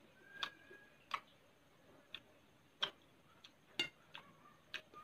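Faint, irregular clicks and taps, roughly two a second, from a metal spoon working food on a glass plate while eating.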